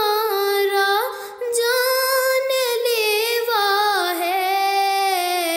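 A woman singing an Urdu nazm unaccompanied, stretching out long held notes with a wavering pitch. She breaks off briefly for breath about a second in, and the melody steps down in pitch near the middle.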